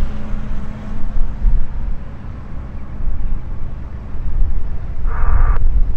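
Cessna 172R Skyhawk's four-cylinder Lycoming IO-360 engine and propeller running as it rolls along the runway, a deep rumble. About five seconds in, a brief burst of airband radio cuts in and ends with a squelch click.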